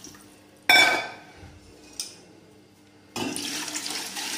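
A sharp metallic clink with a short ring just under a second in, then, from about three seconds in, water pouring steadily from a steel cup into a metal cooking pot.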